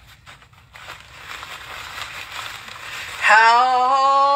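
Packaging rustling as a parcel is opened, then about three seconds in a woman lets out a loud, long, held "ooh" of delight at what is inside.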